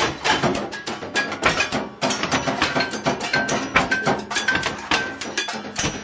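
Fast improvised drumming on kitchen objects: a busy stream of sharp hits, several a second, some leaving a brief ringing tone.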